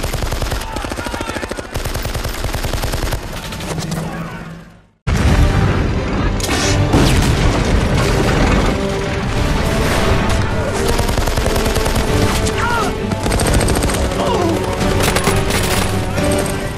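Battle soundtrack: rapid machine-gun and rifle fire that fades to a moment of silence about five seconds in. It breaks off with a sudden loud explosion, then heavy gunfire continues under a dramatic film score.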